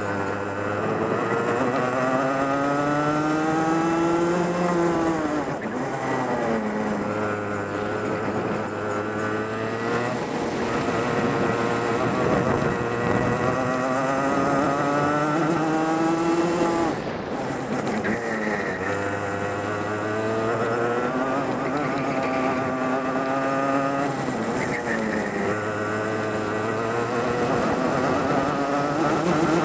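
Racing kart engine heard from on board, lapping a circuit: its note climbs steadily as the kart accelerates down each straight, then drops sharply as it lifts off into the next corner, over and over.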